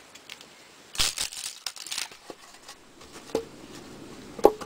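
Wood being split by hand: a crackling, splintering tear lasting about a second, starting about a second in, as a slab comes away from an upright log. Two sharp wooden knocks follow near the end.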